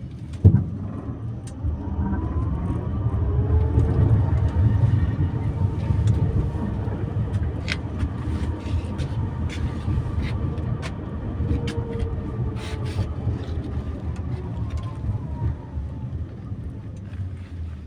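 Tram running along the track, heard from inside the car: a heavy low rumble of wheels on rails with scattered clicks and knocks, the loudest knock about half a second in. A faint motor whine rises a couple of seconds in as the tram gathers speed and falls away near the end as it slows for the next stop.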